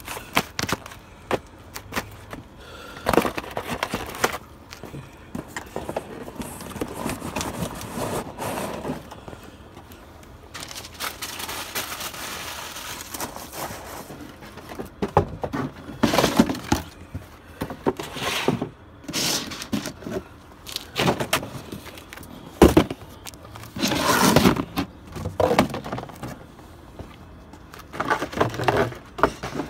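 Cardboard shoe boxes being stomped and crushed underfoot: irregular bursts of crunching and crackling cardboard, with one sharp knock about three-quarters of the way through.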